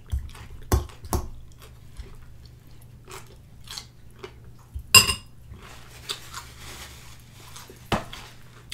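Metal fork clinking and scraping against a glass bowl, with the loudest, ringing clink about five seconds in and other sharp clinks near the start and end. Soft crunchy chewing of cucumber slices in ranch dressing fills the gaps.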